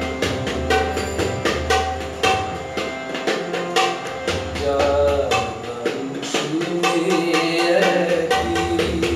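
Tabla played in a quick stream of strokes, the deep ringing bass drum sounding in stretches under the sharper treble-drum strokes. A harmonium plays a held, changing melody alongside.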